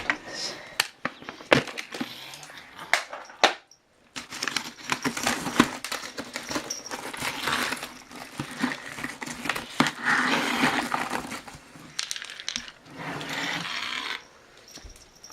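A dog eating from its bowl: irregular crunching and chewing, with a few sharp clicks in the first few seconds.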